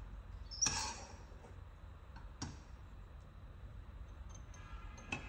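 Metal kitchen tongs clicking and scraping against a nonstick frying pan as stir-fried cabbage and carrot is scooped out: a few separate sharp clicks over a low hum.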